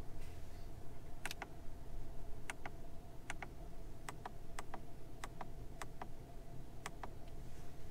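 Plastic climate-control toggle switches on a car's centre console being pressed one after another, giving about eight sharp double clicks over a faint steady hum.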